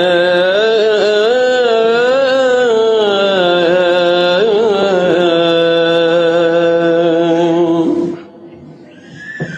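A man's solo voice chanting into a microphone: one long, ornamented phrase with the pitch wavering up and down, ending about eight seconds in, followed by a short quiet pause and a breath.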